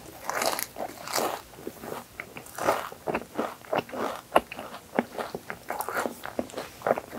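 Close-up crunching and chewing of an Oreo whipped-cream crepe: a bite at the start, then a steady run of short crisp crunches as it is chewed.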